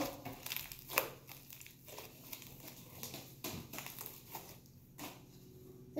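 Fluffy slime being squeezed and stretched by hand, giving soft, irregular crackling with a few sharper clicks.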